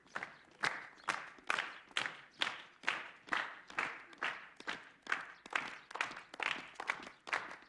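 A group clapping in unison to a steady marching beat, a little over two claps a second, with footsteps on stone paving falling in step.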